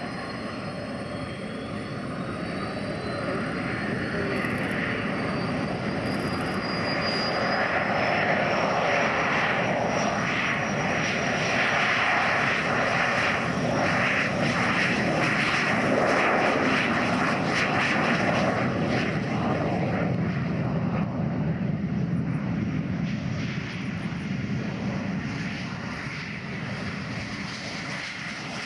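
MiG-17 jet engine spooling up for takeoff with a rising whine, then running at full power through the takeoff roll. The noise grows over the first several seconds, holds steady, and eases off near the end as the jet heads away down the runway.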